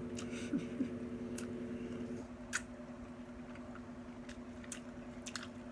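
Eating sounds: faint chewing and a few short, sharp biting clicks, over a steady low hum.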